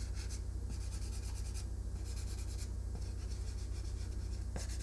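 A water-based marker scratching across a polystyrene foam-tray printing plate in repeated short strokes as it colours in the drawing, with a small click near the end. A steady low hum runs underneath.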